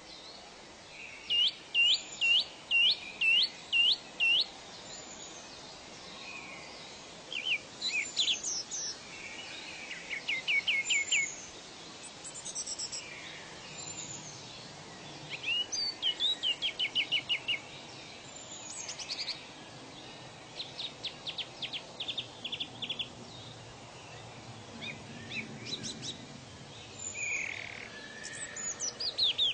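Wild birds singing: repeated series of quick, high down-slurred notes at about two a second, alternating with faster trills and single calls, over a faint steady background hiss.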